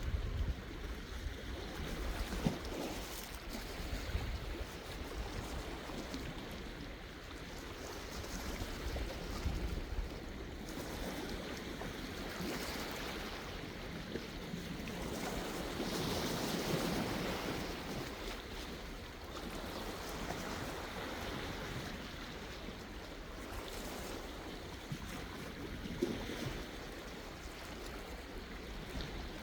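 Sea waves washing onto the shore, one wave swelling and breaking louder about halfway through. Some wind rumbles on the microphone in the first few seconds.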